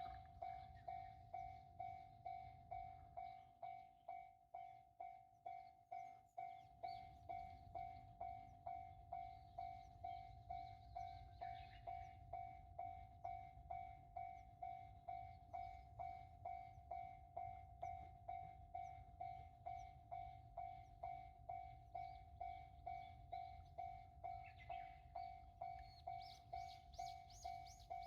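Japanese railroad crossing warning bell ringing faintly, an even clang on one pitch repeating about one and a half to two times a second, with a faint low rumble under it.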